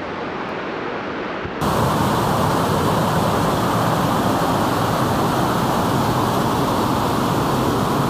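Tall waterfall's steady rush of falling water. It is quieter at first, then louder and fuller from about one and a half seconds in.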